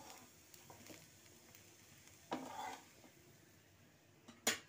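Steel spatula working a dosa loose from a hot iron tawa: a faint sizzle, a short scrape about halfway through, and a sharp metal clink near the end.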